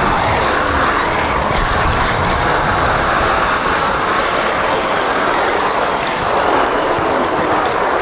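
Steady, loud radio-style static and hiss from a homemade spirit-box imitation sound bank, a dense noise that stays at an even level.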